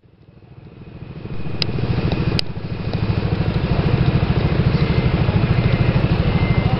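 Engine idling with a steady, rapid pulsing beat, fading up over the first second or so. Two short sharp clicks about one and a half and two and a half seconds in.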